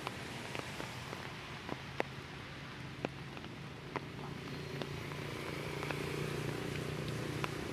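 Rainwater dripping from trees after rain: scattered sharp drops about once a second over a steady hiss, with a low steady hum that grows louder about halfway through.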